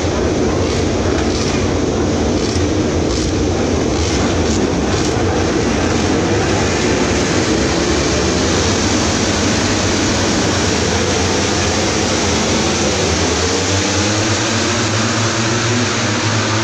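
A full grid of MotoGP bikes, 1000 cc four-cylinder racing engines, revving on the start line and launching away together in a dense, steady roar, with a rising engine note near the end.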